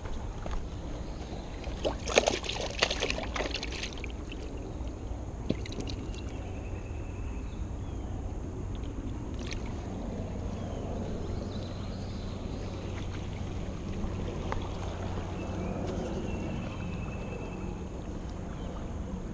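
Steady low rush of creek water and wind on the microphone at the water's edge, with a burst of rustling and sharp clicks about two seconds in as fishing gear and bait are handled.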